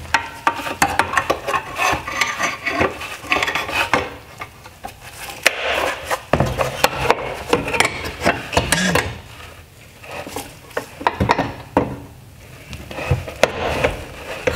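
Irregular clicks, knocks and rattles of hard plastic as an LED headlight assembly is handled and worked with needle-nose pliers, squeezing its mount clips so the projector unit can slide forward. The clicking comes in spells with short quieter gaps.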